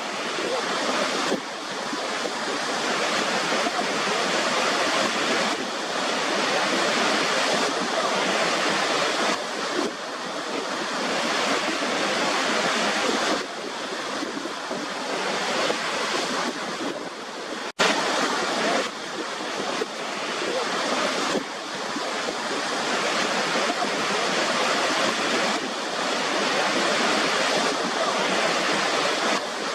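Waterfall: steady rushing water with little bass, its level shifting slightly every second or two, with a split-second gap about 18 seconds in.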